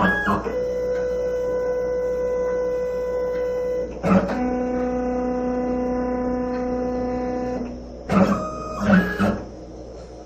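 LongMill CNC router's stepper motors whining as it runs a touch-plate probe: a steady tone as the bit feeds down onto the plate, a short burst about four seconds in, then a lower steady tone as it probes again. A few short, quick moves near the end are followed by quiet.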